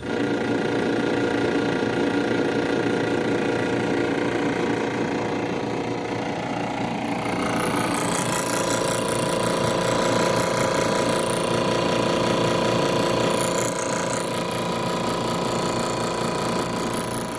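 A machine running steadily with a rapid pulsing hum. A high hiss joins about seven seconds in and fades near the end.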